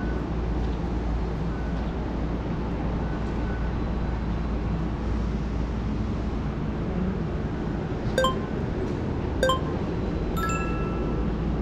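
Steady low rumble of an Airport Rail Link train running, heard from inside the carriage. Two ringing metallic clinks about a second and a half apart come near the end, followed by a brief chime-like ringing tone.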